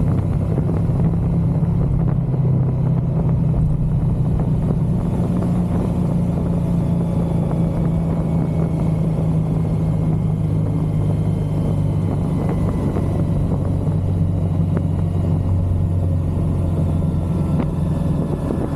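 Motorcycle engine running steadily at cruising speed, a low even drone, under a rush of wind and road noise.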